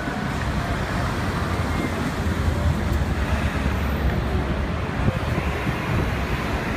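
City street traffic noise, with an old square-body Chevrolet Suburban driving slowly past, its engine rumbling low under the general traffic din.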